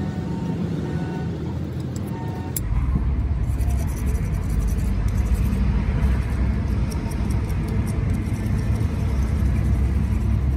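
Steady low engine-like rumble in the background, growing heavier after a sharp cut about two and a half seconds in, with light metal clicks as the jack's pump lever parts are handled.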